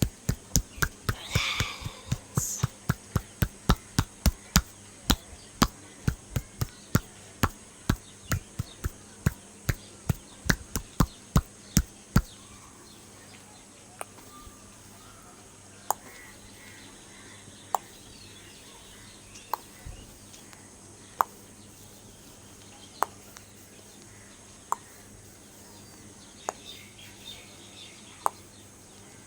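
Percussive hand massage: sharp slaps of the hands on the body at about three a second, stopping about twelve seconds in, then single slaps roughly every two seconds.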